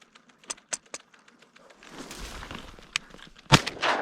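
A few faint clicks, then rustling, then one sharp shot from a 28 gauge shotgun about three and a half seconds in.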